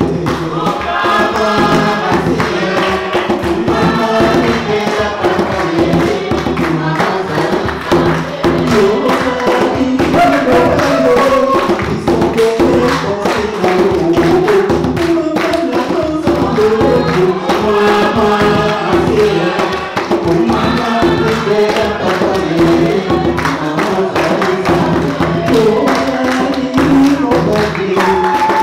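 Worship song: voices singing together over instruments and a steady percussion beat.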